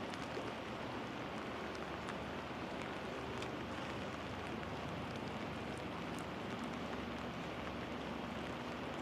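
Steady rain falling, a constant hiss with scattered sharp raindrop ticks.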